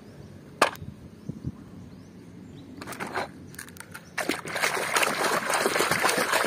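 A plastic toy being swished and rinsed by hand in shallow muddy water: sloshing and splashing that starts about three seconds in and grows louder toward the end. A single sharp click comes near the start.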